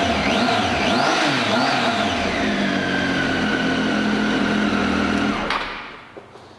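The 2013 Triumph Tiger 800 XC's inline three-cylinder engine is blipped a few times, its pitch rising and falling quickly, then settles to a steady idle. About five and a half seconds in it is switched off and the sound dies away.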